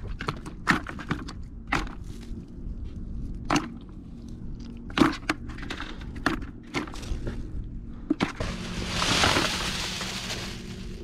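Freshly caught horse mackerel and mackerel slapping and flapping as they are dropped into a plastic bucket: a string of sharp, irregular taps. About eight and a half seconds in, a hissing rush of noise lasts about two seconds.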